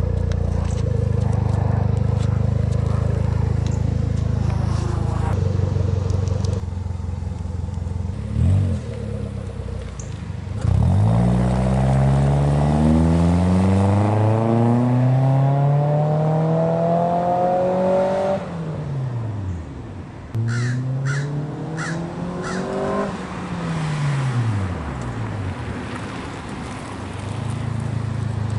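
1999 Mitsubishi Mirage's 1.5-litre four-cylinder engine (4G15) running through an N1 stainless muffler with a 4-inch tip. It idles steadily at first, then the car pulls away: the exhaust note rises as it accelerates, drops at a gear change and rises again, then falls away and climbs once more as the car comes back round.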